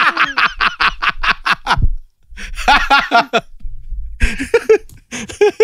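Men laughing in quick, rhythmic bursts, breaking off briefly twice and starting again.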